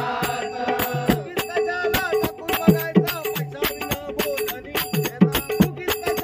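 Devotional bhajan music, instrumental between sung lines: a hand drum whose bass strokes bend in pitch, small cymbals striking a steady beat, and a held drone note underneath.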